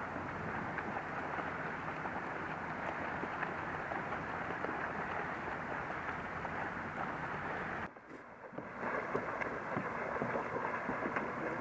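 Steady outdoor noise of wind and lapping water, with a short drop-out about eight seconds in, after which faint splashes and knocks come in.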